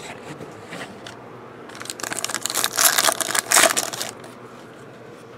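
A trading-card pack's foil wrapper being torn open and crumpled, a crackly crinkling that is loudest for about two seconds in the middle.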